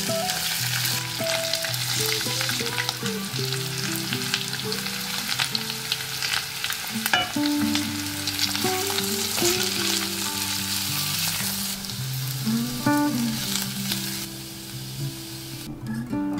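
Diced potatoes frying in hot oil in a small cast-iron kadai, sizzling and crackling steadily as a wooden spoon stirs them; the sizzle drops away near the end.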